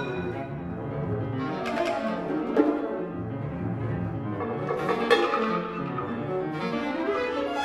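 Chamber orchestra playing contemporary concert music. Bowed strings lead, with several sharp accented attacks about two, two and a half and five seconds in.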